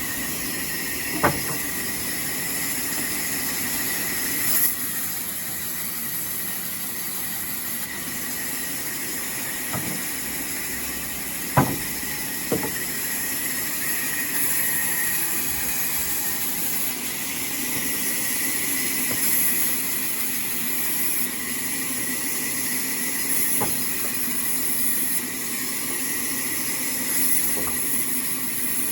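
Sawmill saw machinery running steadily with a high whine and hiss, broken by a few sharp knocks.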